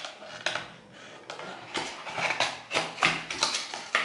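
Cosmetic product packaging being handled and opened: a run of clicks, knocks and rustles.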